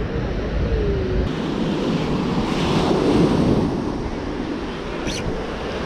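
Waves breaking and washing up on the shore, swelling loudest about halfway through, with wind on the microphone.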